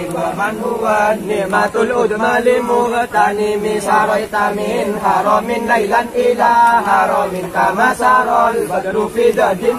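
Many men's voices chanting an Arabic devotional recitation together in unison, the melody moving over steady held notes without a break.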